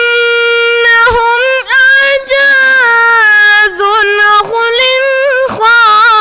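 A boy reciting the Quran in a melodic tajweed style, his high voice holding long drawn-out notes with quick ornamental wavers, pausing briefly for breath several times.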